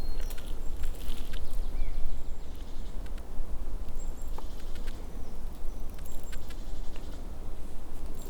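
Rustling and scattered clicks from movement on the forest floor, with a few brief high chirps like small birds and a steady low wind rumble on the microphone.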